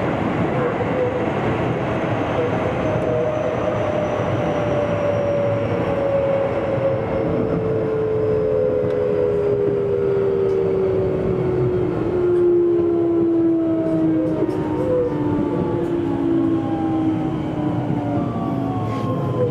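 Keio Series 8000 electric train's GTO-thyristor VVVF inverter whining in several tones that fall slowly in pitch as the train slows under electric braking, over steady wheel-and-rail rumble heard inside the car. Near the end more high falling tones join in.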